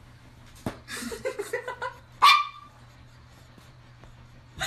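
Small long-haired dog giving a quick run of short whines and yips, then one loud, high bark a little after two seconds in.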